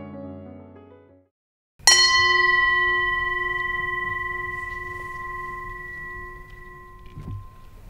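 A metal singing bowl struck once, about two seconds in, ringing with several steady overtones that slowly fade away.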